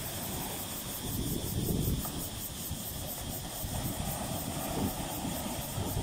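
Small ocean waves breaking and washing up a sandy beach around boulders: a steady rush of surf that swells a little about a second in and again near the end.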